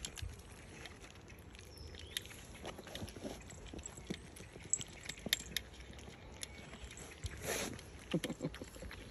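A litter of cavapoo puppies eating raw minced meat from a stainless steel feeding bowl: quiet, irregular wet smacking, chewing and licking clicks, with one louder brief noise near the end.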